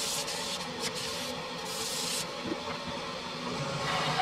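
Wood lathe running while a turning tool cuts the spinning cherry wood, giving a high, even scraping noise that drops away about two seconds in, leaving the lathe's quieter running.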